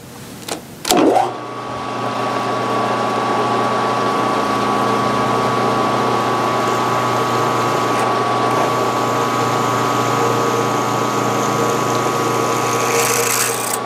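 Drill press switched on with a click about a second in, its motor then running with a steady hum while the bit is fed down to drill a hole in a small metal piece held in a vise. A brief rise of high hiss comes near the end.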